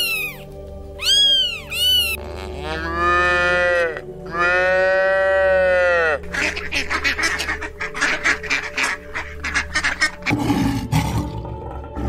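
A string of animal calls over background music. First a cat meows twice, then a cow moos two long times, then come about four seconds of fast, short, rough calls, and near the end a lion gives a low, rumbling roar.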